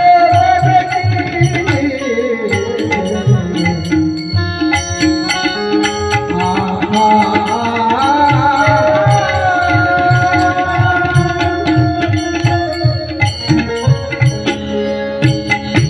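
Devotional kirtan music: a wavering melodic line over a steady pattern of hand-drum strokes, with sharp small-cymbal clicks on the beat.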